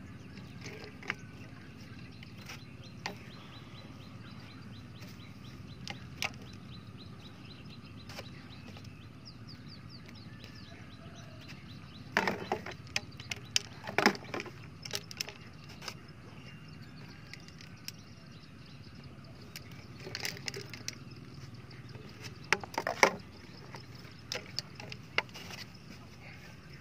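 Scattered knocks and clatter of plastic eel-trap tubes being handled and set down on the ground, with two busier bursts about halfway through and near the end, over a steady low background noise. A faint run of fast high ticking comes in the middle.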